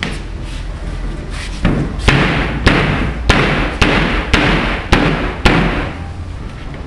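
Seven sharp knocks about half a second apart on a wooden wardrobe panel, typical of a back panel being knocked home into its groove during assembly.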